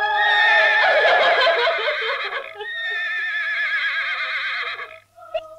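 A horse whinnying twice in long calls with a quavering pitch; the calls stop about five seconds in.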